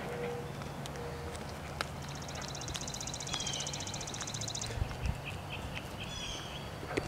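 Small birds calling: short high chirps that drop in pitch, and a fast high trill lasting a few seconds from about two seconds in. A steady low hum lies underneath.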